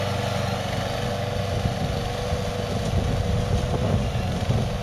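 Hybrid GOAT 22T remote-control slope mower running as it mows across a hillside. Its gas engine runs steadily, with an uneven, fluctuating low rumble.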